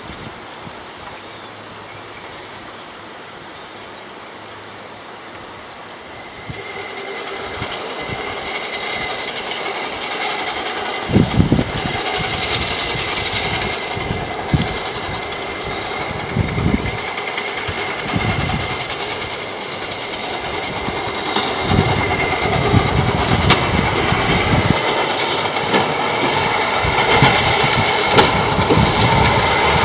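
Rail-wheeled golf cart approaching along the track and over a bridge: a steady motor hum and whine growing louder as it nears, with irregular knocks from the wheels on the rails.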